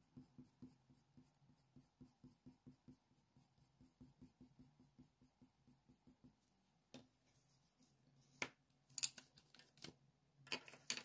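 Faint scratching of a Faber-Castell Polychromos coloured pencil on hot-press watercolour paper, in quick short fur strokes at about five a second. The strokes stop about six and a half seconds in, and a few louder clicks and rustles follow as the pencils are swapped.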